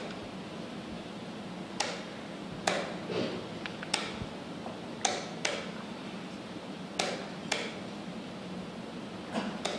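Wooden chess pieces set down on a board and chess clock buttons pressed during fast play: about ten sharp clicks, several in quick pairs, over a steady low hum.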